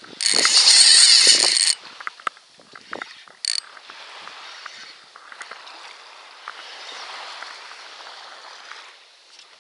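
Saltwater spinning reel's drag buzzing loudly for about a second and a half as a hooked barracuda takes line, with a second brief burst a couple of seconds later. After that comes a quieter steady hiss with light clicks.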